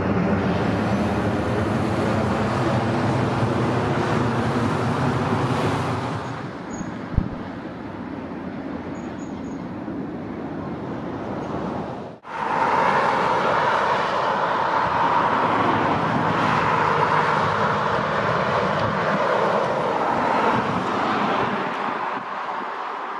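Jet engines of a Boeing 757-200 freighter climbing out overhead, loud at first and fading after about six seconds, with a single sharp click about seven seconds in. After an abrupt break, the CFM56 jet engines of a Boeing 737-800 doing a touch-and-go give a steady rushing roar with a whine.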